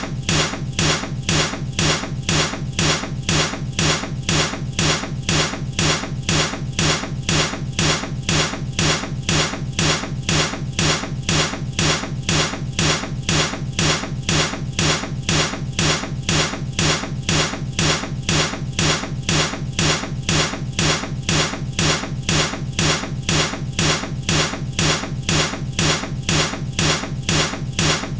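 Baseball bat hitting something in an unbroken loop, one thwack after another at an even, quick pace with a heavy low thud in each hit.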